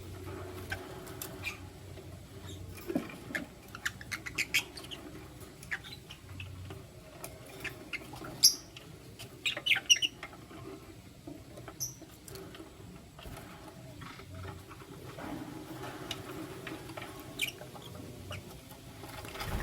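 Lovebirds giving short, high chirps and squeaks at irregular intervals, bunched about four seconds in and again around eight to ten seconds in, among light clicks.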